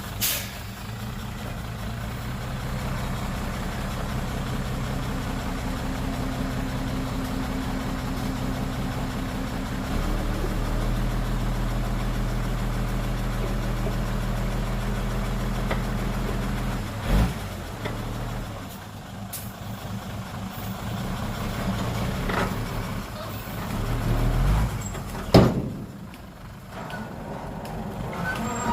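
Heavy diesel dump truck engine running steadily. It grows heavier and deeper about ten seconds in, then dies away after about eighteen seconds, with a few sharp knocks in the later part.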